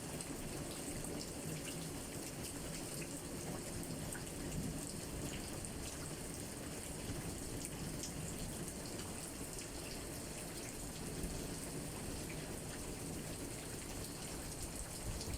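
Steady rain falling, with many small drop impacts ticking through it.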